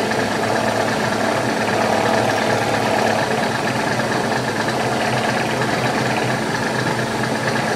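Turret milling machine running with its cutter taking a light skimming pass along the edge of a steel plate as the table traverses: a steady motor hum under a continuous cutting noise. This is a check pass to see how flat the machined edge is.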